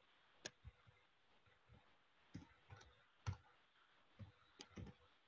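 Faint, irregular clicks of computer keys, about ten over five seconds, as a line of text is edited.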